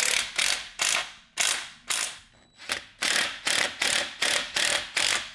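Hand socket ratchet clicking in quick repeated strokes, about two to three a second, with a short pause midway, as the engine-mount bolts are tightened after sliding the engine forward to tension the drive chain.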